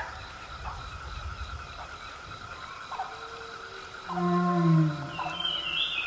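Jungle ambience of dinosaur and animal calls: a low creature call that falls in pitch, loudest about four seconds in, over a steady high drone, with a higher call near the end.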